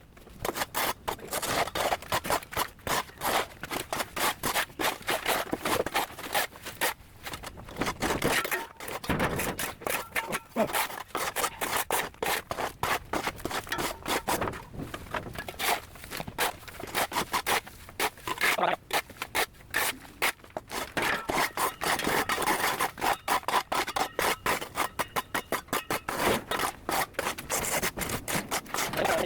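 Rapid, repeated scraping strokes, several a second, of something being rubbed hard against a surface by hand.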